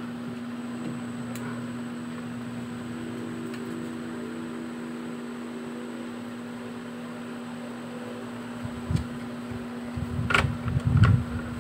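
A steady mechanical hum with a low drone, like a running fan motor, and a few soft knocks and handling bumps near the end.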